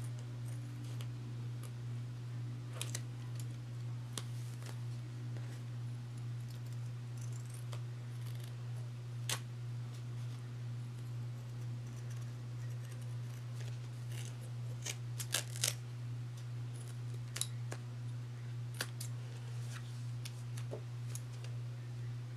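Scissors snipping through the layers built up around a slipper sole, cutting away the excess. The snips are short, sharp and irregular, with a quick cluster of the loudest about two-thirds of the way through, over a steady low hum.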